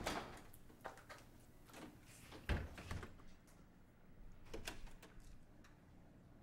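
Quiet room with a few scattered clicks and knocks and one soft thump about two and a half seconds in.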